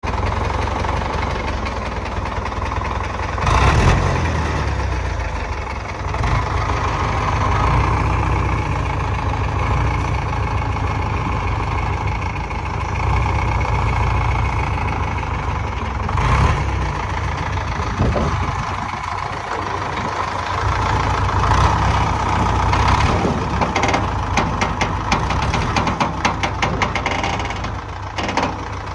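A mobile crane's diesel engine runs with a steady low rumble. A couple of sharp knocks stand out, and a fast run of clicking comes near the end.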